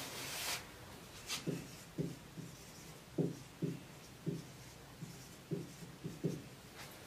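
Marker writing on a whiteboard: a run of about ten short strokes as letters are written.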